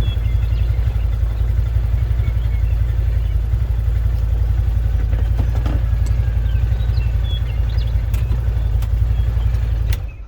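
A small vehicle's engine running steadily with a low, rapid pulsing, switched off abruptly near the end.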